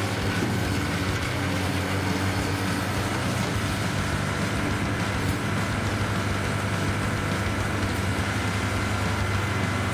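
The engine of a log-splitting machine running steadily.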